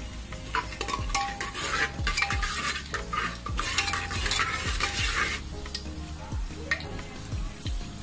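Whole spices and dried red chillies sizzling in hot oil and ghee in a metal pan, stirred with a spoon that scrapes and clicks against the pan. The stirring is loudest from about one second in until about five and a half seconds in, then the sizzle goes on more lightly.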